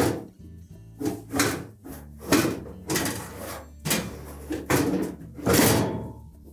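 GE dryer drum knocking and scraping against the cabinet as it is lifted by its belt and worked onto the rear bearing: a string of about eight irregular clunks and scrapes as the drum shaft is seated.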